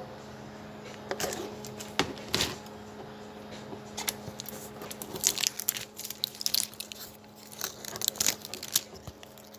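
Scattered sharp clicks and crinkly rustles of things being handled, densest in the second half, over a steady low hum.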